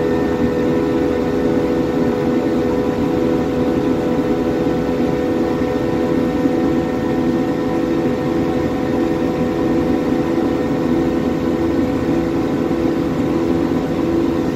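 Airliner's jet engines droning steadily in the climb after takeoff, heard from inside the passenger cabin: an even rush of air with a steady hum of several pitches over it.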